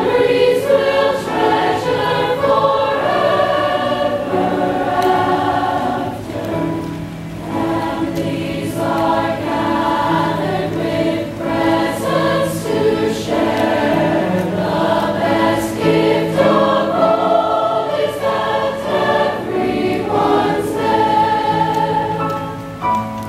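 Large mixed chorus of teenage voices singing a piece in harmony, with held notes shifting every second or so, accompanied by piano.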